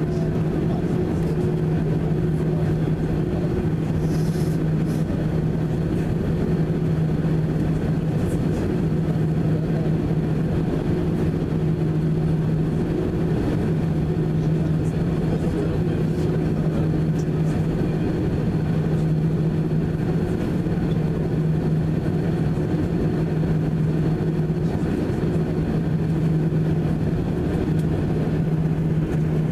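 Cabin noise of an Airbus A319 taxiing with its jet engines at idle: a steady drone with an even low hum.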